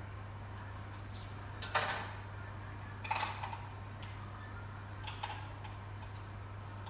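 A few short clatters of kitchen utensils and dishes handled on a countertop, the loudest a little under two seconds in, others about three and five seconds in, over a steady low hum.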